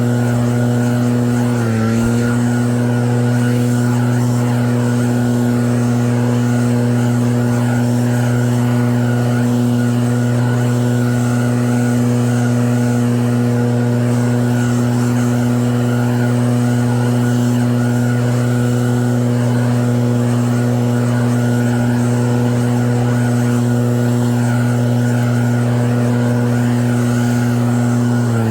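Snowblower engine running steadily at a constant speed, with a brief dip in pitch about two seconds in.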